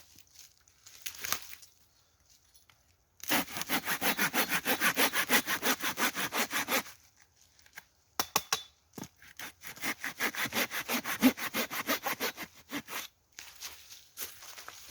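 Hand saw cutting through wood in two bouts of rapid, even back-and-forth strokes, each a few seconds long, with a short pause between them.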